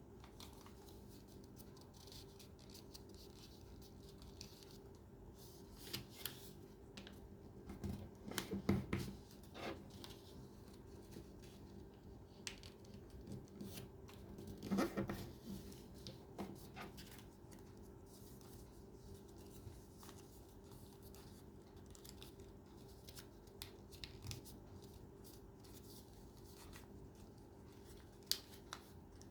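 Paper being handled and folded, with scattered crackles and clicks that cluster about a quarter and halfway through, over a faint steady hum.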